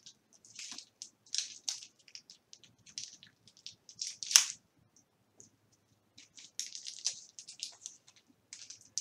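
Irregular crinkling and crackling from hands working candles into a glass candle holder, with one sharper, louder crackle about four seconds in and a short pause a second later.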